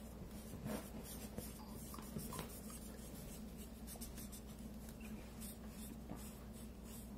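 Felt-tip markers scratching faintly on paper in quick, irregular colouring strokes as two letter shapes are filled in.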